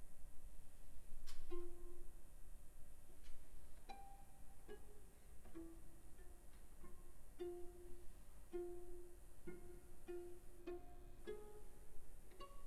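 String quartet playing a quiet, sparse passage of contemporary music: short notes, mostly on one repeated pitch about once a second, with a few sharp string clicks between them.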